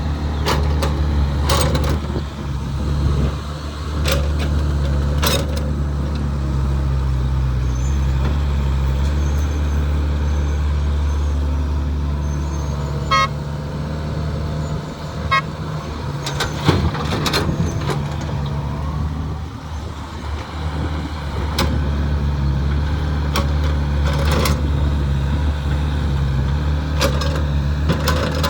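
Heavy diesel engine of an excavator running steadily, with sharp knocks and clanks every few seconds.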